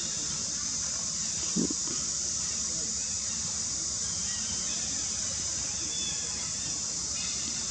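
Steady high-pitched drone of insects, with a short low knock about one and a half seconds in and a few faint short squeaks.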